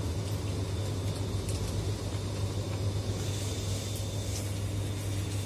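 Steady low hum and rumble of a grocery store's background, with a few faint clicks.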